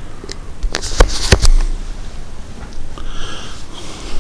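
A quick cluster of sharp clicks and knocks, handling of the computer case side panel, about a second in, followed a little after three seconds in by a short sniff.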